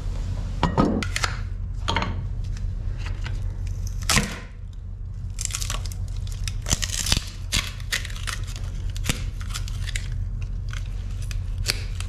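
A pry bar gouging and prying at old fiberglass and putty filler around a boat's stern tube: irregular scraping and cracking strokes as pieces break away, over a steady low hum.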